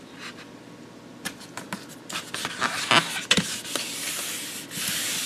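Vinyl tape being laid onto a foam RC plane wing: crackles and clicks as the tape is handled and pressed down, then a steady hiss of hands rubbing it flat along the wing near the end.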